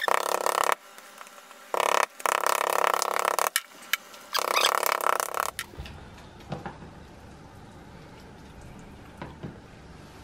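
Rapid runs of blows from a wooden meat mallet with a ridged metal face, pounding chicken breasts flat on a plastic chopping board. They come in three or four bursts about a second long in the first half, then give way to a few faint knocks.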